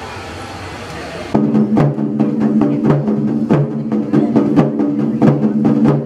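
Japanese taiko drums struck by a group of drummers, a run of sharp strokes over a steady held musical tone. It starts suddenly about a second and a half in, after a short stretch of background noise.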